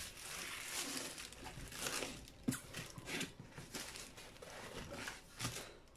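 White foam packing and a plastic bag being handled in a cardboard box: irregular rustling and scraping, with a few light knocks.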